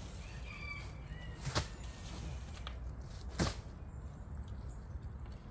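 Two sharp knocks about two seconds apart as fishing gear is set down and shifted in a small boat, over a low steady rumble; faint bird chirps early on.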